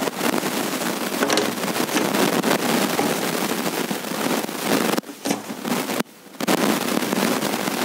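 Harsh, dense crackling distortion from a broken audio recording, dipping briefly about five and six seconds in.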